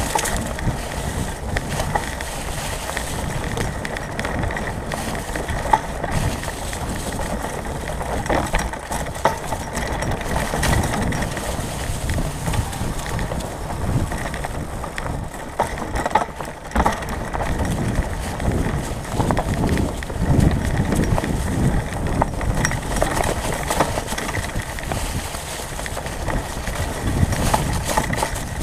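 Mountain bike riding a leaf-covered dirt trail, heard from a camera mounted on the bike: a steady rumble of knobby tyres rolling over dry leaves and roots, with frequent knocks and rattles as the bike goes over bumps.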